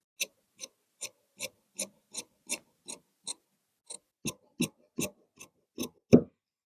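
Tailor's shears snipping, about fifteen short metallic snips at a steady two or three a second, heavier towards the end with the last snip loudest.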